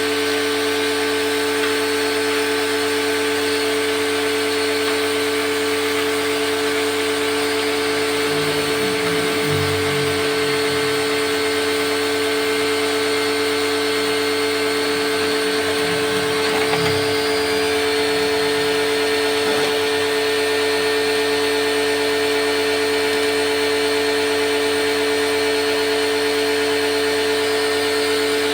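A small electric motor running steadily with a constant hum and whir.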